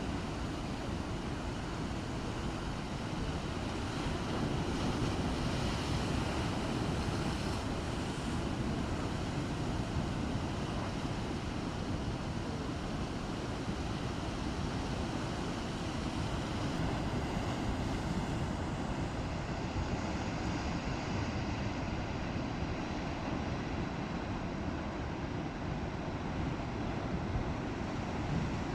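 Rough sea: waves surging and wind blowing on the microphone, a steady rushing rumble without a break.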